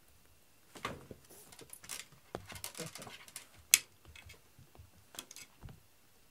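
Cat teaser wand with a pompom toy rustling and tapping as it is waved and dragged about in play: irregular soft rustles and taps, with one sharp click about halfway through.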